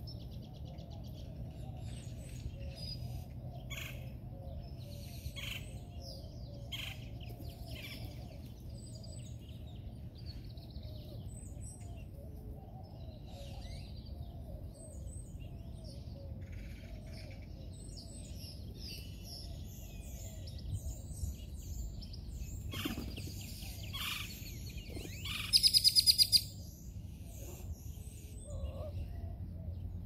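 Birds of a feeding flock, among them great-tailed grackles and sparrows, chirping and calling, with short chirps and whistles scattered throughout. About 25 seconds in comes a loud rapid run of about eight sharp notes. A steady low rumble runs beneath.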